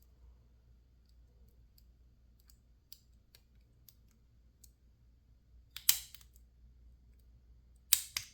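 Lock-picking clicks: faint ticks of a pick working the pin tumblers of a PacLock 410 Pro lock, with two sharper clicks about six and eight seconds in, the later ones as the lock goes back into a false set.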